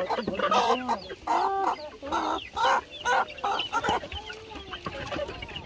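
Chickens clucking and squawking in a quick run of short calls, some harsh, some pitched and rising and falling.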